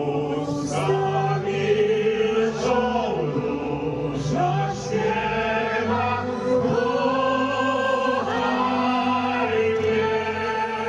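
A woman and a man singing live into microphones over instrumental backing music, holding long notes that slide between pitches.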